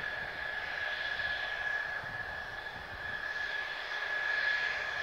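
General Electric F110 turbofan of a Mitsubishi F-2 fighter idling on the ground: a steady high-pitched whine over an even jet hiss.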